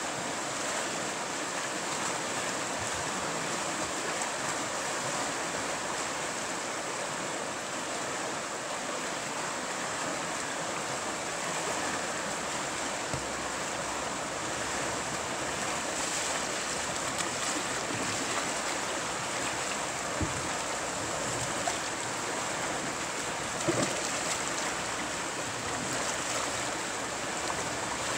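Shallow river rapid rushing steadily over rocks in white water. A few short sharp knocks stand out about two-thirds of the way through.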